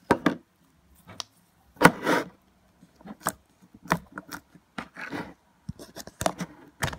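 Homemade slime being pushed back into its plastic container: irregular sticky pops, clicks and scrapes, the loudest about two seconds in and near the end.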